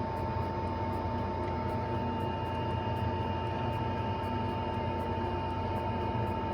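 Steady machine hum with a constant high-pitched whine over an even fan-like noise, as from bench equipment running.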